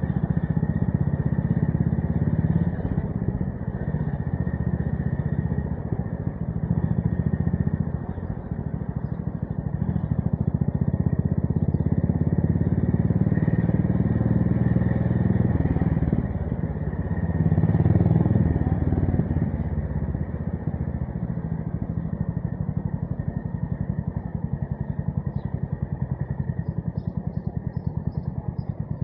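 Honda GB350S single-cylinder engine running under way through a MILLER Spitfire slip-on exhaust, the throttle opening and closing: it dips twice, surges about two-thirds of the way in, then eases off to a quieter even thudding of separate exhaust pulses near the end.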